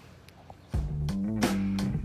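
Background music with guitar starts about three-quarters of a second in, after a short quiet stretch, with a steady bass line and a regular beat.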